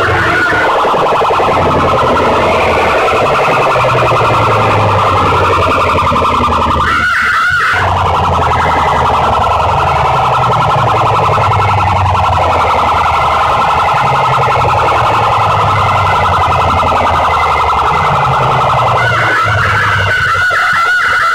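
A huge bank of horn loudspeakers blasting a distorted, siren-like wailing track at full volume, with deep bass notes underneath. The sound briefly thins out about seven seconds in, and the bass drops away near the end.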